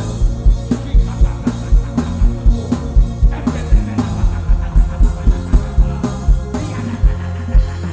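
Worship band music with no singing: a steady drum beat with a strong kick, about three beats a second, under sustained low chords.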